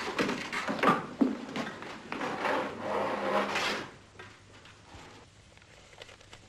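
Wooden filing-cabinet drawer being pulled open: several knocks and clicks and a sliding scrape, dying away about four seconds in.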